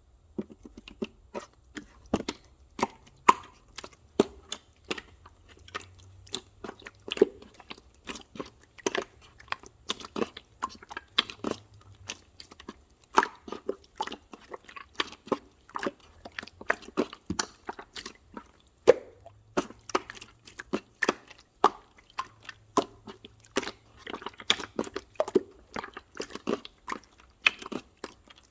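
Irregular crisp crunches and clicks, one to three a second.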